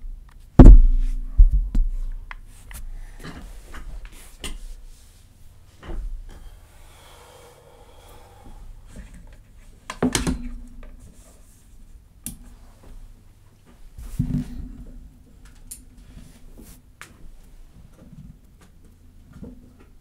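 Scattered knocks and thumps on and around a desk, picked up close by a keyboard microphone as a person gets up from the chair and moves away. There is no typing. The loudest thump comes about half a second in, with further knocks around ten and fourteen seconds.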